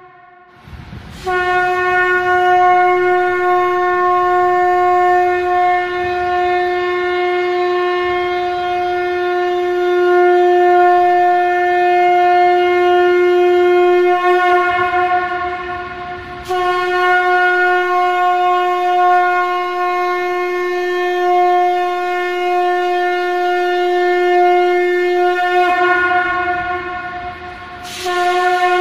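Shankh (conch shell trumpet) blown in long, steady held blasts on one low note, rich in overtones. A new blast starts about a second in, another about sixteen seconds in, and a third near the end.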